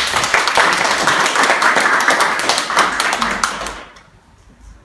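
Small audience applauding, a dense patter of hand claps that dies away about four seconds in.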